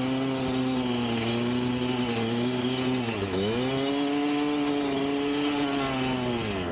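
1999 Kawasaki KX250 single-cylinder two-stroke engine held at high revs. About three seconds in the revs drop sharply and climb straight back up.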